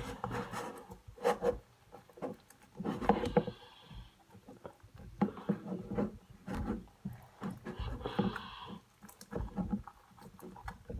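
Sticky slime being kneaded and pressed together by hand, giving irregular wet clicks, pops and squelches.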